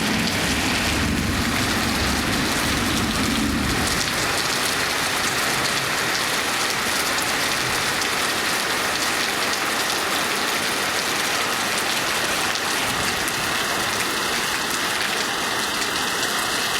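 Heavy monsoon rain falling steadily and densely, with a low rumble in the first few seconds.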